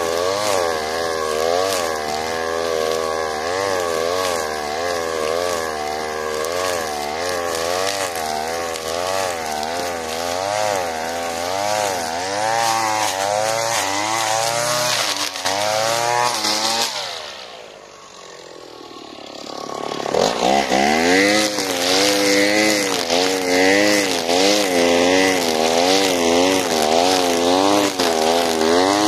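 Alpina Star 55DP gas brush cutter's small two-stroke engine running at high speed while cutting tall grass, its pitch wavering up and down in quick regular sweeps. About seventeen seconds in the sound fades away, then comes back abruptly about three seconds later.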